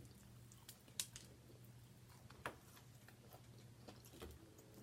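Near silence: a low steady hum with a few faint, sharp mouth clicks from quiet chewing, one about a second in and another about two and a half seconds in.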